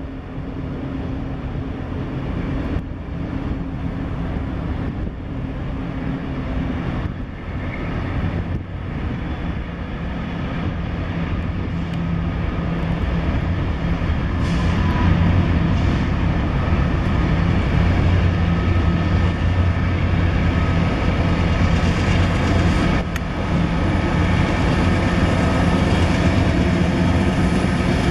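Union Pacific diesel freight locomotive running as it approaches and passes close with a train of pipe loads, a steady low engine drone that grows louder over the first half and then holds.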